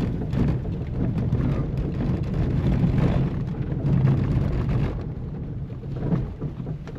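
Steady low rumble and rattling noise of a moving vehicle on the way in, with wind buffeting the microphone.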